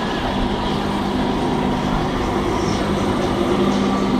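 Blackpool illuminated tram passing close by: a steady electric hum over the noise of its wheels on the rails, growing a little louder as it draws alongside.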